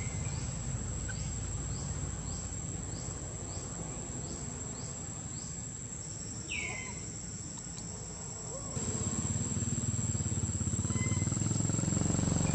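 Steady high-pitched insect drone. Over it, faint short falling chirps repeat about twice a second for the first six seconds, and a single sharper falling squeak comes about six and a half seconds in. Low background rumble gets louder about nine seconds in.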